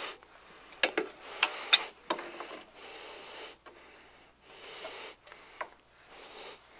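Pliers and a steel retaining C-clip clicking against the parking-brake cable end and its bracket as the clip is pressed toward its groove: a few sharp metallic clicks about a second in, a fainter one later, with breathing between.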